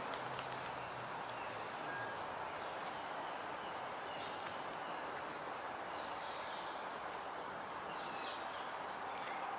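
A steady background hiss of outdoor ambience, with three short, thin, high chirps from small birds: one about two seconds in, one about five seconds in and one near the end.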